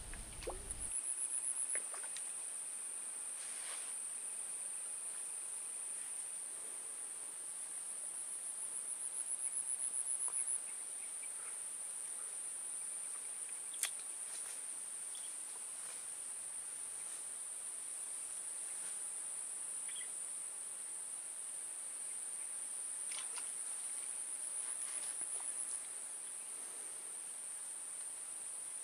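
Insects trilling in a steady high-pitched chorus that swells three times into louder, rapid pulsing. One sharp click about fourteen seconds in.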